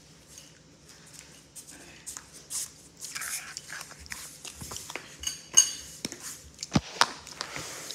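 Clicks, knocks and clinks of plastic Play-Doh cans, lids and toys being handled on a hard floor, sparse at first and busier in the second half, with a few louder knocks.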